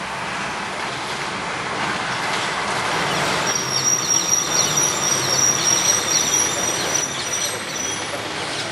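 Rushing noise of a passing road vehicle that swells toward the middle. Over it, from about halfway, come short high bird chirps and a thin steady high tone.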